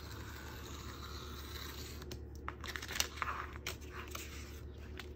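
A craft knife drawn along a metal straight edge, slicing through a sheet of canvas with a faint scratchy hiss. About two seconds in come a few sharp clicks and crackles as the cut edge is freed and the canvas is lifted and handled.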